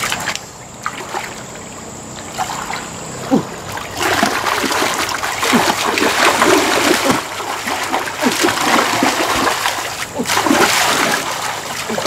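Shallow muddy water splashing and sloshing as hands grope through it and legs wade, in quick irregular splashes that grow louder from about four seconds in.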